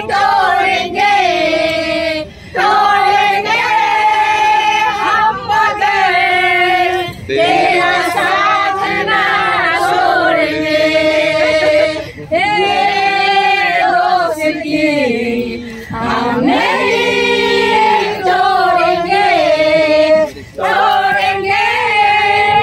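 A group of women singing a folk song together in chorus, in sung phrases of a few seconds each with short breaks between them.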